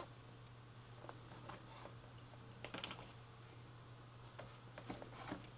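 Hand saddle-stitching leather: a few faint clicks and rustles as the needles pass through the punched holes and the bonded nylon thread is drawn tight, a small cluster of them near the middle, over a low steady hum.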